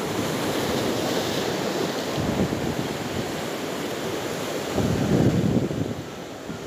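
Sea surf washing onto the beach, with strong wind buffeting the microphone; a louder surge about five seconds in.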